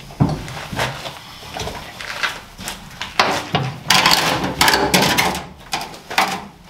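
Irregular knocks, clunks and scrapes from a Nissan 350Z fuel tank shifting and bumping against a trolley jack as it is manhandled.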